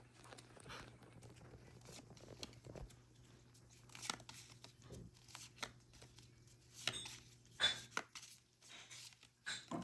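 Faint crinkling and tearing of a foil Pokémon card booster pack, with the cards rustling and tapping as they are handled: scattered short rustles and clicks, a few sharper ones in the second half.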